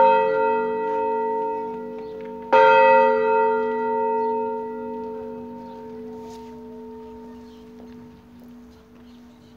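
Motor-driven swinging church bells in an open steel tower: one loud stroke about two and a half seconds in, over the ring of the stroke before, then the tone hums on and slowly fades with no further stroke.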